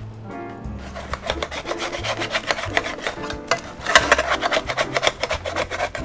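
Metal spatula scraping along a metal baking tray as it is worked under a baked puff-pastry crust, a dense rasping, crackling scrape that starts about a second in and is loudest about four seconds in. Soft background music underneath.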